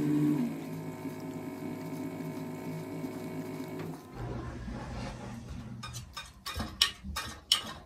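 Steady mechanical hum of a cool-mist humidifier, made of several even tones, cutting off about four seconds in. Then a lower hum with a run of sharp scratching clicks near the end as a cat paws at a wall.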